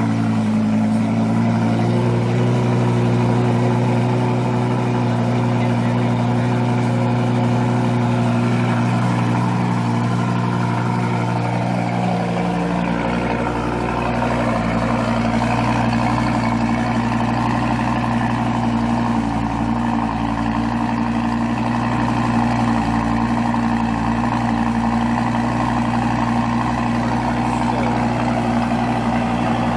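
2014 Lamborghini Gallardo's 5.2-litre V10 idling steadily through its quad exhaust, loud and even with no revving. A deeper low rumble joins the idle about twelve seconds in.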